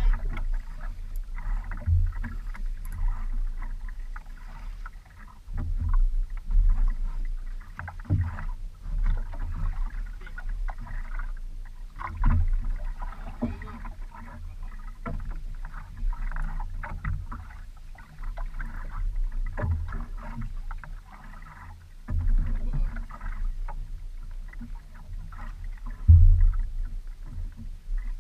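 Water sloshing and slapping against the hull of a small wooden outrigger boat, over a steady low rumble, with irregular heavier low thumps every few seconds.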